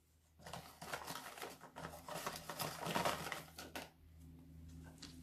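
Folded paper slips rustling and crackling in a box as a hand rummages through them to draw one. It is a quick flurry of light crackles that stops about four seconds in.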